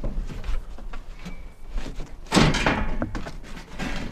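Green steel crate frame being pried and lifted off a packing crate: a loud clanking scrape about halfway through, with smaller metal knocks before and after.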